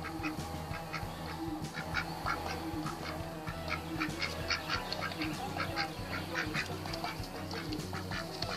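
Mallard drake quacking in a steady run of short calls, a few a second.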